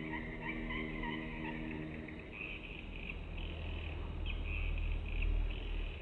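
Swiftlets twittering: rapid, high, chattery chirps repeating without a break. A soft drone of held low tones fades out about two seconds in, and a low rumble of wind on the microphone comes up after it.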